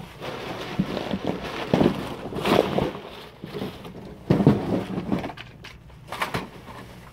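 Large brown paper bag and a plastic bag rustling and crinkling in a few short bursts as packages are pulled out of them.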